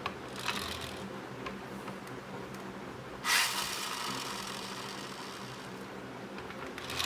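Pull-back toy car's spring motor: a brief scrape as the rubber wheels are dragged back to wind it. About three seconds in, the car is lifted and its wheels spin freely with a whir that starts suddenly and winds down over about three seconds. A short scrape of the wheels being pulled back again near the end.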